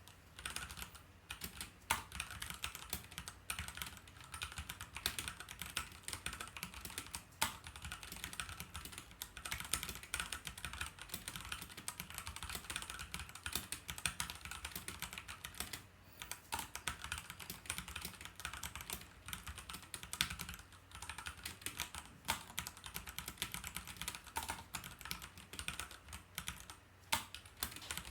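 Typing on a Keychron K4 mechanical keyboard with Gateron Brown switches: a fast, uneven stream of key clicks with a few louder strokes and a couple of brief pauses.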